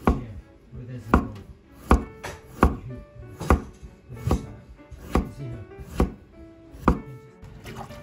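Chef's knife slicing a red radish on a wooden cutting board, each slice ending in a sharp knock of the blade on the board, about one every 0.8 seconds and roughly nine in all.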